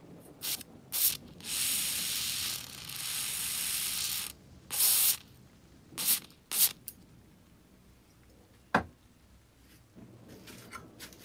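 Aerosol spray can with a red straw nozzle spraying into the seam of a blowtorch's brass handle. It hisses in spurts: two short ones, two longer sprays of about a second each, then three short ones. A single sharp tap comes near the end.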